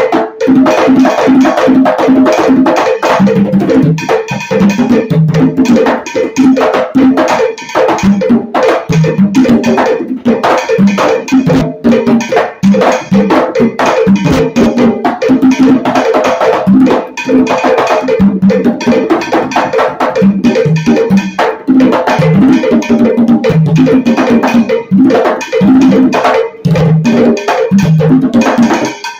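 Percussion music: hand drums playing a rumba rhythm, with pitched low drum strokes and a wooden clave-like knock.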